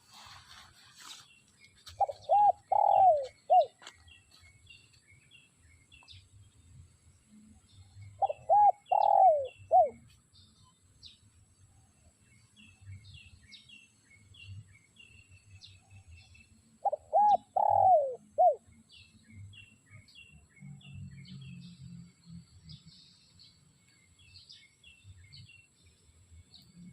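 Spotted dove (tekukur) cooing: three phrases of about four coos each, repeated roughly every six to nine seconds. Small birds chirp faintly in the background.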